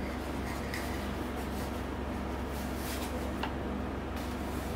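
Hands handling a plastic monitor bezel: faint rubbing and a couple of light clicks over a steady low hum.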